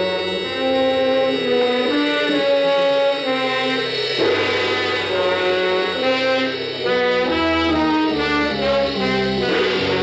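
Radio-drama music bridge: a brass-led band plays a run of held chords that change every half second to a second, marking a jump in time between scenes.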